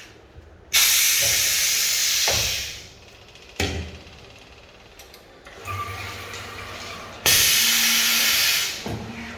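Zebra roller-blind cutting machine making two cutting passes, each a sudden hiss lasting about a second and a half. A sharp knock comes between them.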